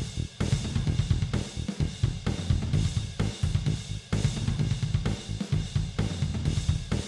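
Background music with a driving drum-kit beat: kick drum, snare and cymbals.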